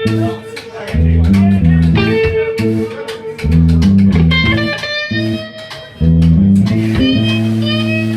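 Live band playing a loud, bluesy riff on electric guitar and bass guitar, the bass line repeating with a short break about every three seconds and a guitar holding and bending notes above it.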